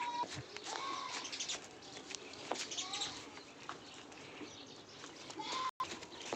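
Four short animal calls spread over several seconds, each a brief tone that rises and falls, over scattered clicks and knocks.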